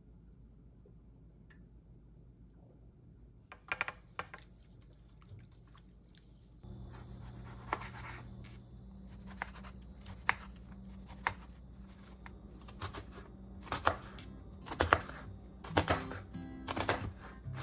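Knife chopping on a cutting board: a few scattered clicks, then short strokes about once a second that grow louder and closer together toward the end. A low steady hum comes in about seven seconds in.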